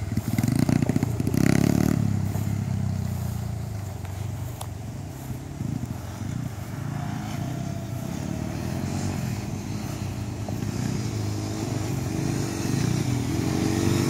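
Small dirt bike and youth ATV engines running on a dirt track, their pitch rising and falling with the throttle. Loudest in the first two seconds, then fading and building again near the end.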